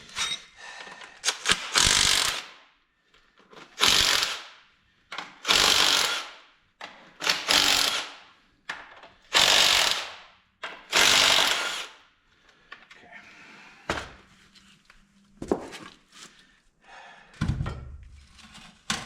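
A power tool runs in about six short bursts of roughly a second each, undoing bolts to take a part off a tractor engine, with small clicks between the bursts. A low, heavy thud comes near the end.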